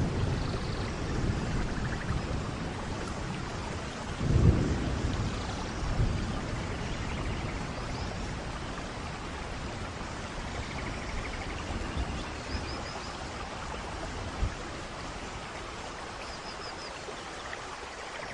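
Heavy rain falling steadily, with a deep rumble at the start and another about four and a half seconds in.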